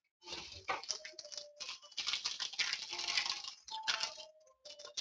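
Trading cards being handled and shuffled through by hand, with a dense run of rustling and light clicking of card stock and plastic sleeves that comes and goes in short spells.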